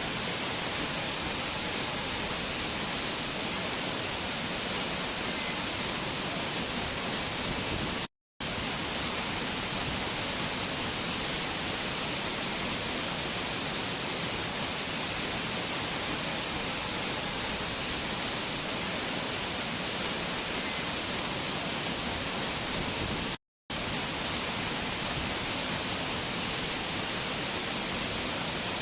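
Waterfall: a steady, unbroken rush of falling water, cut off twice for a split second by brief gaps of silence.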